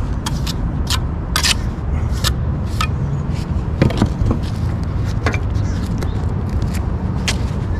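Steel trowel scraping and knocking in a mixing tub of wet rapid-set concrete, a string of short irregular strokes over a steady low rumble of road traffic.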